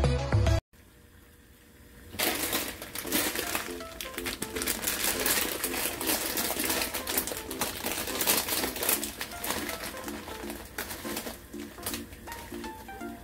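Plastic instant-noodle packet (Shin Ramyun) crinkling and rustling as it is handled and torn open by hand, starting about two seconds in. A soft background music melody plays under it.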